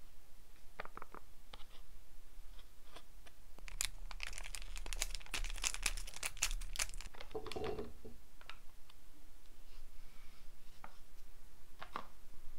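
A plastic snack pouch being torn open by hand and crinkled. A dense run of crackling tearing sounds comes from about four to seven seconds in, with a few single crinkles and clicks before and after.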